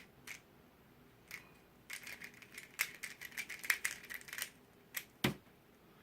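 Plastic layers of a Shengshou Ling Long, a 46 mm mini 3x3 speed cube, clicking as they are turned in quick runs of turns, with a single louder knock about five seconds in.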